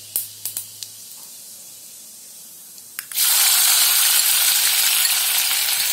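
Cumin seeds crackling in hot oil in a kadhai, with a few sharp pops. About three seconds in, finely chopped onion drops into the oil and a loud, steady sizzle of frying starts at once.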